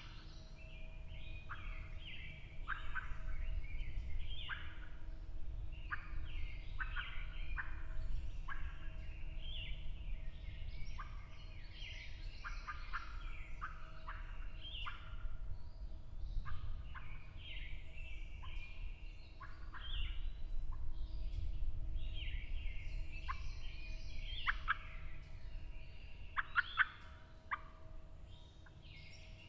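Wild turkey gobbler gobbling again and again, each gobble a quick rattling burst, through the whole stretch.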